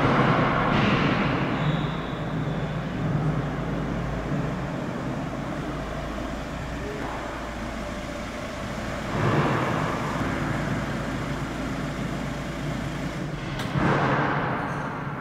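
Compact van's engine running as it drives and pulls up in a multi-storey car park, swelling louder three times.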